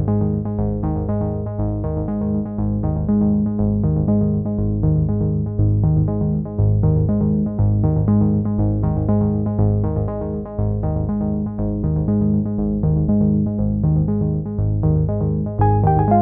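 Background music: synthesizer and keyboard with a steady, repeating beat.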